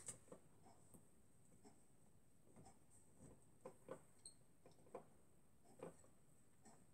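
Near silence: room tone with a faint steady high-pitched whine and a scattering of faint soft clicks.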